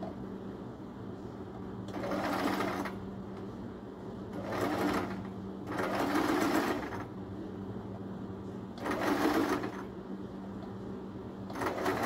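Electric sewing machine stitching fabric in five short runs of about a second each, stopping between them, over a steady low hum.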